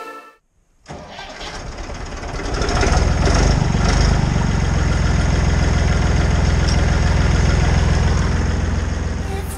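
Old Massey Ferguson tractor's engine starting about a second in, then running steadily.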